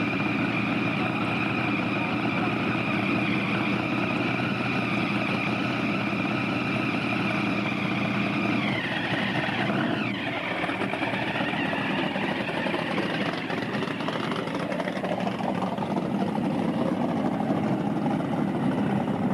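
Supercharged engine of a hot rod coupe idling, with a high steady whine over it. About nine seconds in the whine drops in pitch, and the engine runs on less evenly afterwards.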